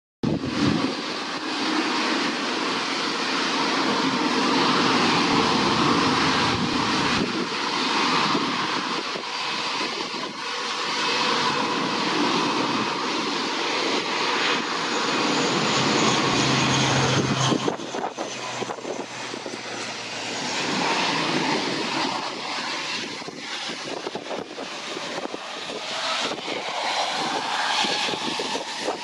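Aircraft engine noise from an ATR 72-600 twin-turboprop airliner's engines and propellers on final approach. The sound changes abruptly about two-thirds of the way through and turns a little quieter.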